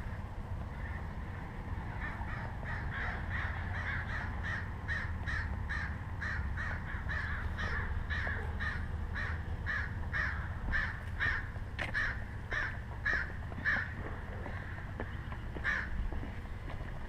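A bird calling over and over in short, evenly spaced calls, about two to three a second. The calls break off a few seconds before the end, with one last call after a pause.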